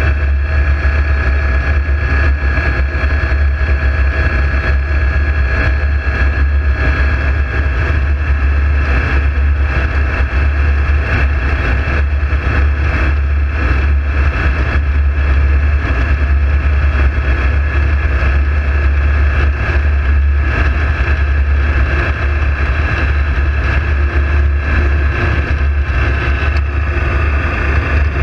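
Ultralight aircraft's engine and propeller running steadily in flight, a constant drone heard from inside the cockpit.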